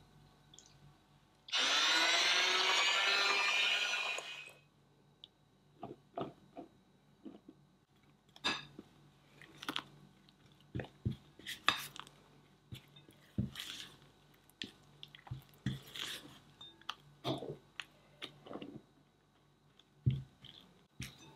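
An electric hand mixer runs for about three seconds, its pitch rising slightly as it starts. Then a silicone spatula scrapes and knocks against a glass mixing bowl as flour is folded into the batter, giving scattered short clicks and scrapes.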